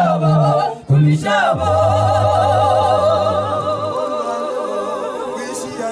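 Mixed-voice church choir singing a cappella in harmony. After a short break about a second in, the voices hold one long chord with vibrato that slowly fades.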